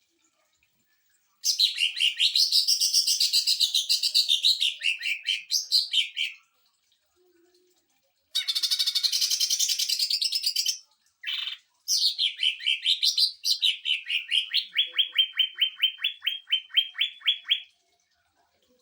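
Cucak ijo (green leafbird) singing its rapid-fire 'tembakan mesin jahit' (sewing-machine shooting) song. It comes in three long bursts of fast repeated notes. The last burst settles into an even run of about five notes a second.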